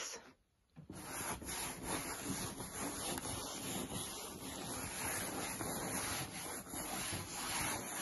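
Bristles of a switched-off vacuum cleaner's brush head scrubbing over mattress fabric, rubbing bicarbonate of soda into it. A steady scratchy rubbing that starts about a second in.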